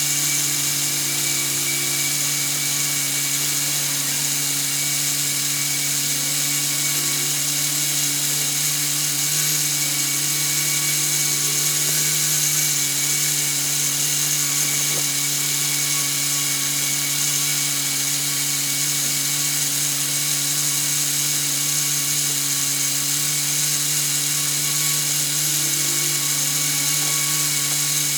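Homemade air compressor running steadily: an even motor hum at a constant pitch over a high hiss.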